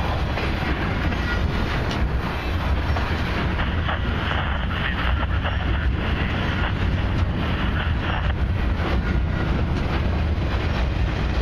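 Cars of a CP Expressway intermodal train, highway trailers on low flat cars, rolling past: a steady rumble of steel wheels on rail with scattered clicks.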